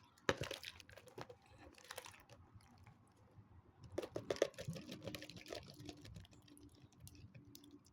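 Faint, scattered clicks and taps of containers being handled, with a quick cluster of them about four seconds in.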